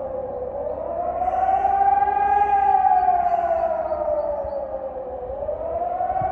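Civil defence warning siren howling, its pitch slowly rising and falling and starting to rise again near the end. This up-and-down howl is the German public warning signal, sounded here as a test.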